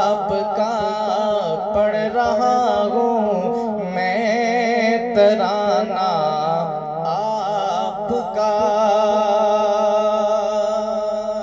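A man's voice singing a naat, an Urdu devotional poem in praise of the Prophet, in ornamented, gliding vocal phrases. Near the end he holds one long, wavering note.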